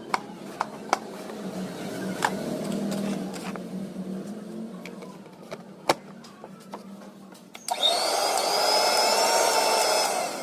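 Scattered clicks and knocks of handling, then an old mixer grinder's motor, fitted with new carbon brushes, switched on and running at high speed with a steady high whine for about two and a half seconds before it stops.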